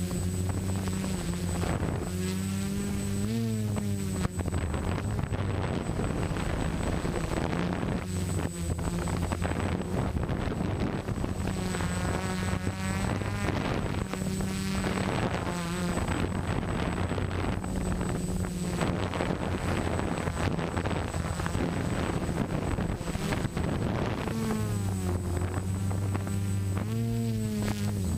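HK SK450 quadcopter's electric motors and propellers buzzing in flight, heard close to the onboard camera. The pitch rises and falls several times as the motor speeds change.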